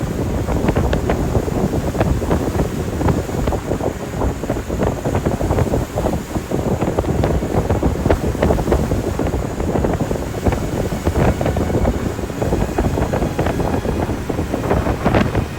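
Wind buffeting the microphone aboard a boat under way at sea: a steady rushing noise with rapid flutter.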